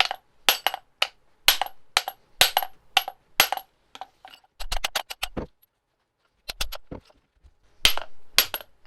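Hammer blows on a metal CV joint to drive it off the splined end of a VW Golf Mk1 driveshaft: sharp, ringing metallic strikes about two a second, with a quick run of lighter taps midway and a short pause before a few more blows.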